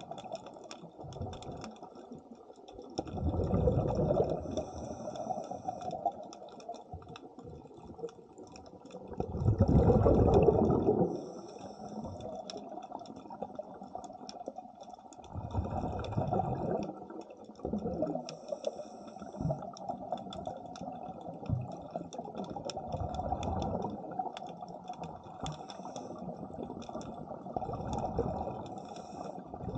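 Underwater sound of a diver's breathing: exhaled bubbles rush out in a loud surge about every six seconds, with a steady crackle of small clicks in between.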